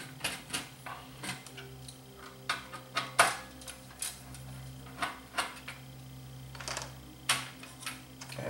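Irregular small clicks and clinks of a screwdriver and loose screws against the sheet-metal chassis of an LCD monitor as its power supply board is unscrewed and handled, over a steady low hum.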